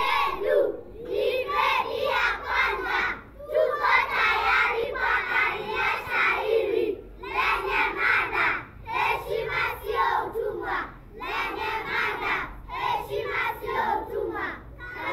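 A group of young schoolchildren reciting a Swahili poem in unison, in chanted phrases with brief pauses between them.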